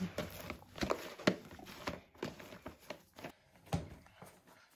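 Hands kneading a lump of wheat dough in a plastic bowl: irregular soft thumps and squelches about once a second as the dough is pushed and folded against the bowl.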